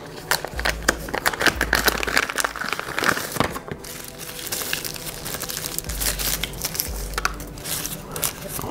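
Plastic packaging crinkling and rustling as a new pair of sunglasses is unwrapped by hand from a clear plastic bag, with a few low handling thuds.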